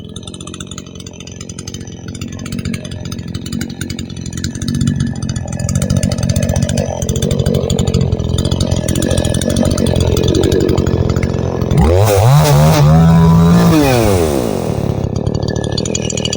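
Radley 52cc two-stroke chainsaw, fitted with a catalytic muffler, cutting through a saturated log under load and growing louder. About twelve seconds in it revs up sharply to full throttle, holds briefly, then winds back down.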